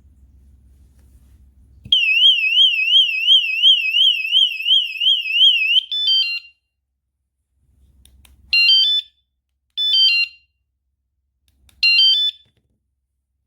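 WSDCAM rechargeable bike alarm sounding. A loud, high warbling siren tone sweeps rapidly up and down, about three times a second, for about four seconds. It then breaks into a short trill of stepped beeps, followed by three short chirping bursts of stepped beeps spread over the next several seconds.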